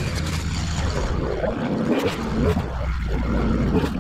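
Small petrol engine of lawn-care equipment running steadily at working speed.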